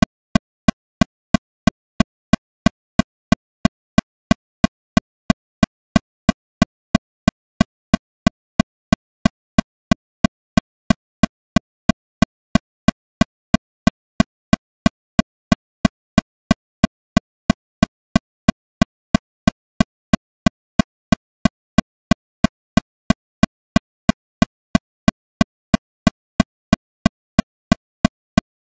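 Metronome clicking steadily at 182 beats per minute, about three sharp clicks a second, each the same, with silence between.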